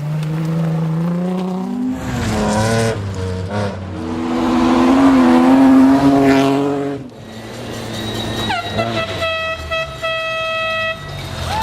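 Rally car engine revving hard, its pitch climbing with breaks between gears. Then, with about three seconds left, a horn sounds one steady note for a couple of seconds.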